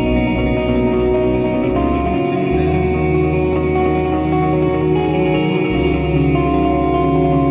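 Background music with guitar, playing steadily with held notes.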